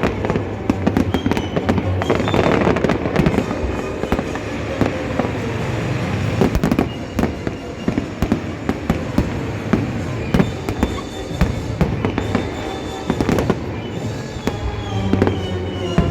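Fireworks bursting and crackling in quick, irregular succession, with music playing underneath.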